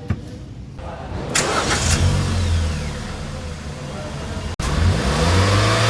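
Hyundai i20's engine running, then revved about five seconds in, its pitch rising.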